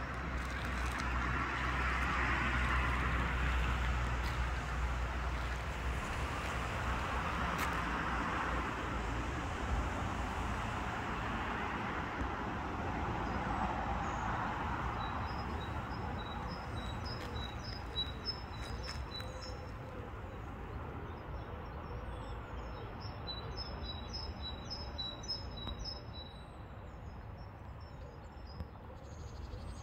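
A small songbird sings two runs of rapid high chirps in the second half, over a steady wash of distant traffic noise that is loudest in the first half.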